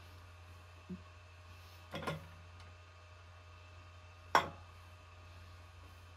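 Sharp metallic clinks as a dial indicator on a milling machine spindle is swung by hand around a valve guide to centre it: a small one about a second in, a double clink around two seconds, and the loudest a little after four seconds, over a low steady hum.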